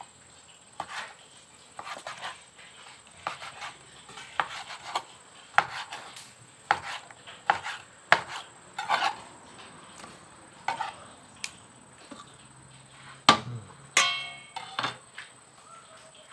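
Kitchen knife slicing raw stingray liver on a cutting board: irregular taps of the blade hitting the board, roughly one a second. Near the end comes a louder knock and a short metallic ringing as the slices go into a steel bowl.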